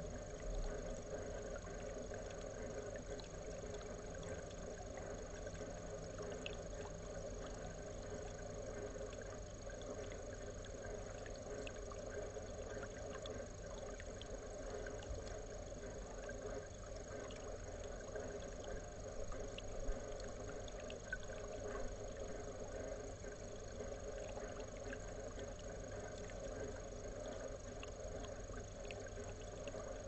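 Wild European rabbit lapping water from a pond's edge: faint, irregular small wet ticks over a steady low hum.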